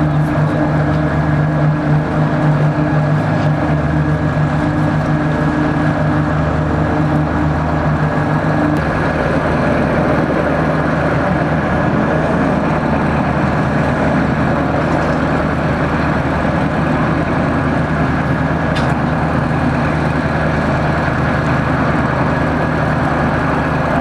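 Helicopter turbine engines and rotors running steadily: a constant high turbine whine over a low engine drone. About nine seconds in, the low steady tones drop out and a rougher rushing rotor noise carries on.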